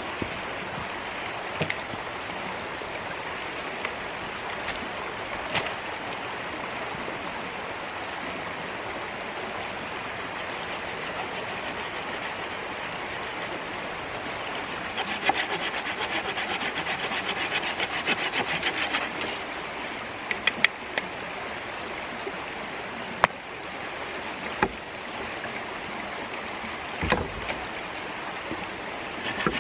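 Creek water flowing steadily over stones. About halfway through, a Bahco 396 folding saw cuts a branch in quick, even strokes for several seconds, followed by a few sharp cracks and knocks.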